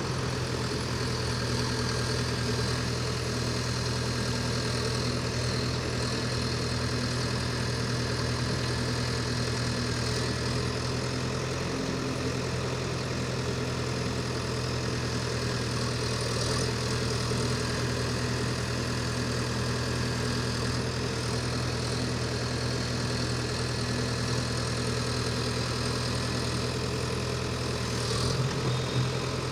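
Small excavator's diesel engine running steadily at one pitch, with a slight change near the end.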